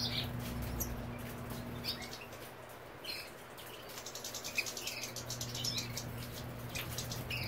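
European goldfinches giving short, high, scattered chirps and twitters, among many light clicks.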